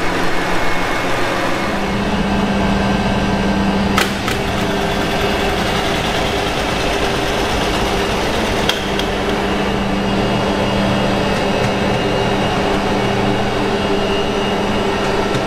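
Steady, loud drone of running diesel machinery in a ship's engine room, with an even low hum throughout. Two short sharp clicks stand out, about four and nine seconds in.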